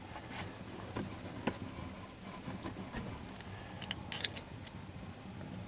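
Light metallic clicks and scrapes of a steel punch working the bent tabs of a lock washer against the rear-axle hub nut, a few single clicks early and a quick cluster of sharper clicks about four seconds in.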